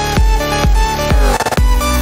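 Background electronic music with a heavy, steady beat of about two hits a second. A little after a second in, the beat drops out briefly under a sweeping effect, then comes back.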